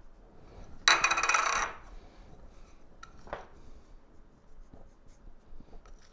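Ground seasoning tipped from a small plastic dish onto a raw grouse: a brief gritty hiss of grains sliding off the dish about a second in. A light click and a soft knock of the dish being handled follow a couple of seconds later.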